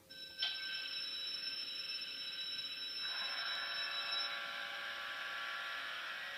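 ESU LokSound decoder in an H0 model FS D445 diesel locomotive playing recorded diesel engine sound through the model's small speaker, a buzzing, tinny tone. It comes in sharply just after the start, and about three seconds in the engine note changes and grows fuller, as when a diesel catches and settles.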